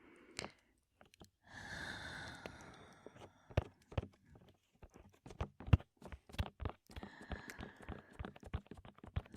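A long, heavy breath close into the microphone, then a run of irregular taps on the microphone, the loudest about halfway through, with breathing again under the taps near the end.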